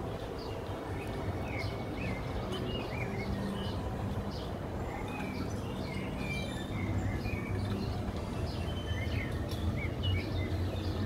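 Low steady hum of a running wave swinger chair ride, a little louder from about seven seconds in, with many short bird chirps over it.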